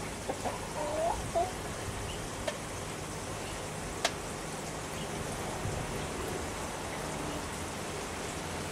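Outdoor background of steady hiss with a faint low hum. A few short bird chirps come about a second in, and a single sharp click about four seconds in.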